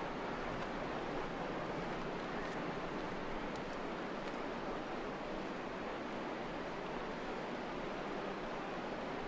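Steady rush of sea wind and surf, an even noise with nothing standing out.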